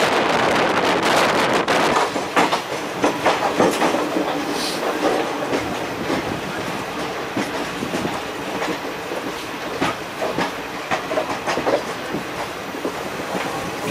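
Wheels of Indian Railways passenger coaches clattering over the track joints of a running express, heard from an open coach door. A dense steady roar at the start gives way about two seconds in to a lighter rumble with irregular sharp clacks.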